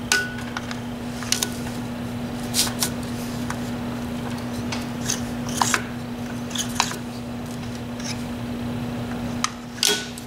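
Clutch disc being positioned by hand against a Kubota diesel's flywheel: scattered light metallic clicks and taps of the disc against the flywheel. A steady low hum runs underneath.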